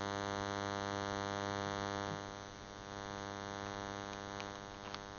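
Steady electrical buzz, a mains-type hum with many overtones, dropping slightly in level about two seconds in, with a couple of faint clicks near the end.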